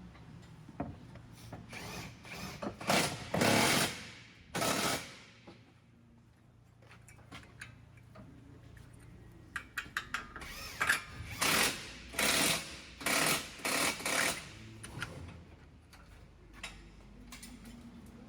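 A power tool used on the strut assembly, run in short bursts: a first group of about five bursts in the first five seconds, a pause with a few clicks, then a second group of about six bursts from about ten seconds in.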